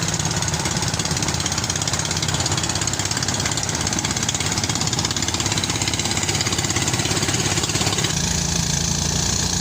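Engine-driven rice threshing machine running steadily with a fast, even pulse; its sound shifts in tone about eight seconds in.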